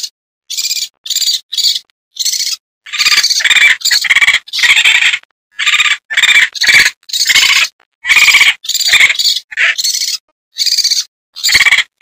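Raccoon calls: a run of about twenty short, high-pitched, rapidly pulsed calls, each well under a second, broken by brief silences.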